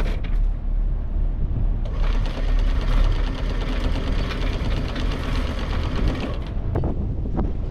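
Electric anchor windlass hauling in the anchor chain: a fast, even mechanical clatter from about two seconds in until shortly before the end, over a steady low hum.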